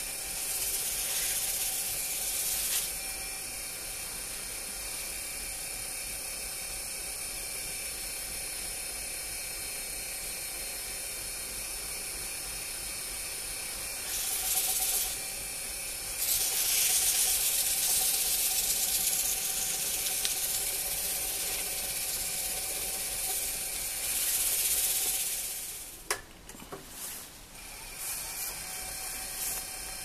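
Wood lathe motor running steadily while a paper towel is pressed against the spinning wooden bowl to work in a cream finish, giving a loud rubbing hiss that swells several times, longest from about 16 to 21 seconds in. The sound drops away briefly around 26 seconds in, then the running resumes.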